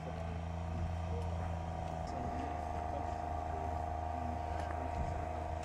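Merkava tank engine running steadily at idle: a low, constant drone with a steady whine above it.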